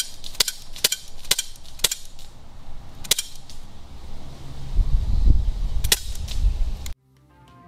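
Beretta replica CO2 BB pistol firing: a quick string of sharp pops about two a second, then single shots about three and six seconds in. A low rumble builds under the later shots, then the sound cuts off and music starts faintly near the end.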